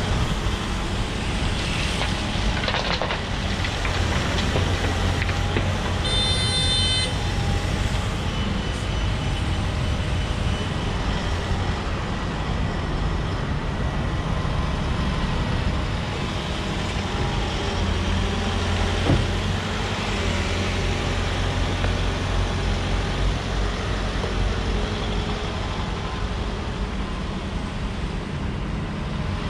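Volvo EWR150E wheeled excavator's diesel engine running steadily under working load, with its hydraulics. A short high beep sounds about six seconds in.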